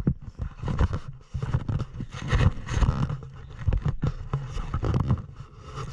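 Gusty wind rumbling on an action camera's microphone, with irregular scrapes and knocks.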